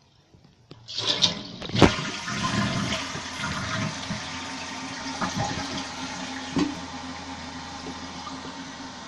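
1995 Vitromex Marathon toilet flushing with its tank lid off: about a second in the water starts rushing, with a sharp knock just after, then a steady rush of water that slowly eases as the tank drains and refills.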